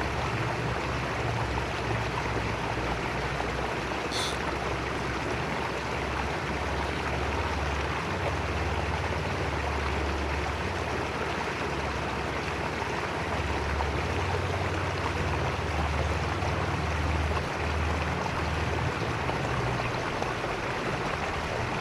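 Small mountain creek running over rocks: a steady, even rush of water. There is one brief high-pitched chirp about four seconds in.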